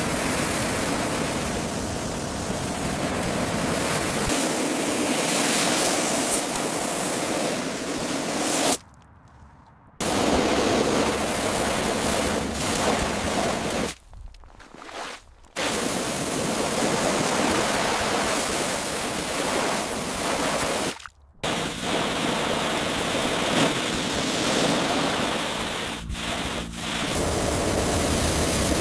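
Pressure washer spraying water in a steady hiss that cuts out abruptly three times.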